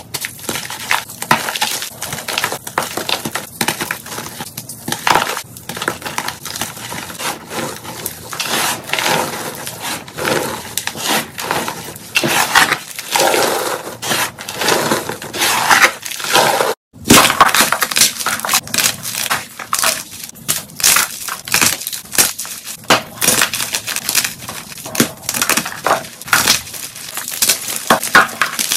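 Fingers crushing and crumbling blocks of chalk (pink-dyed soft chalk, then white gym chalk) in dense, rapid crunches, sped up to double speed. The sound cuts out for a split second about two-thirds of the way through.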